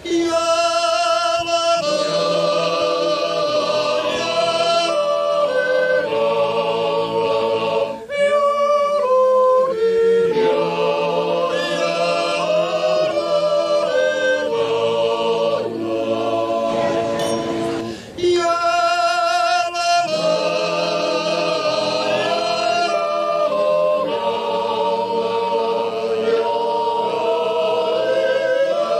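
A cappella choral singing: several voices holding long chords with a wavering vibrato, in phrases with short breaths between them. It starts suddenly out of silence.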